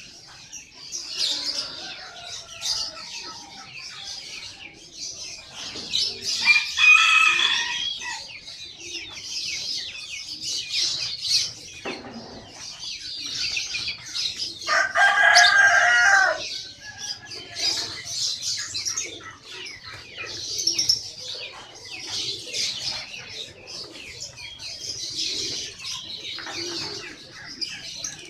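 Many caged songbirds chirping and twittering at once, with a rooster crowing loudly twice, each crow lasting about two seconds.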